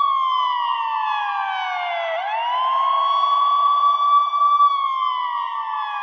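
Ambulance siren with an underwater-style effect, wailing: it holds a high tone, slides slowly down for about two seconds, sweeps quickly back up, holds, and starts sliding down again near the end. A rough hiss runs along with the tone.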